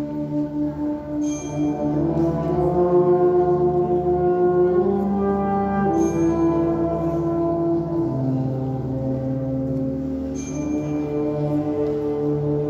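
Symphonic wind band playing slow, sustained chords led by brass, the harmony shifting every few seconds. A bell-like stroke rings out three times, roughly every four to five seconds.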